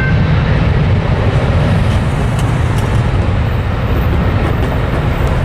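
Jet airliner engines at takeoff thrust: a loud, steady low rumble.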